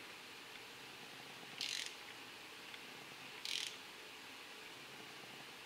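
Faint ratcheting of a torque wrench, two short strokes nearly two seconds apart, while spark plugs are being tightened.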